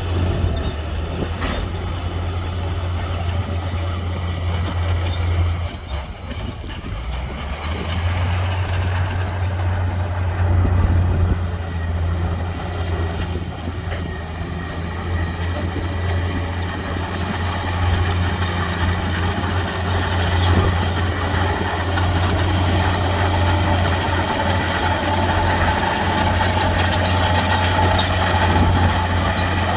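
Heavy diesel construction machinery running steadily with a low engine drone; the drone drops briefly about six seconds in, then comes back up.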